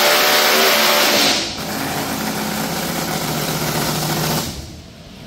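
Blown Hemi engine of a pro mod drag car at full throttle on a hub dyno, its pitch still climbing. About a second and a half in, the throttle closes and it runs lower and steadier. About four and a half seconds in, the sound falls away as the pull ends.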